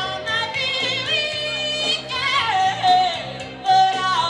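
A woman singing live into a handheld microphone, with long held notes that waver in vibrato and slide between pitches, over instrumental accompaniment with steady low bass notes.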